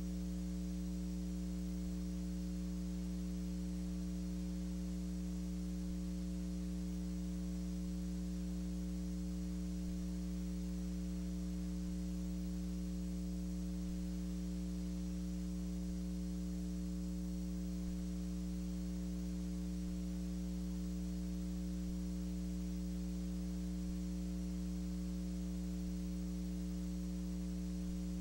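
Steady electrical mains hum with several higher overtones over faint hiss, unchanging throughout: the only sound on the track of a silent film transfer.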